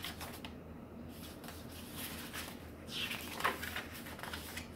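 Paper pages of a hand-bound journal, eco-dyed cardstock and coloured printer paper, being turned by hand: a quiet rustle and slide, most noticeable about three seconds in.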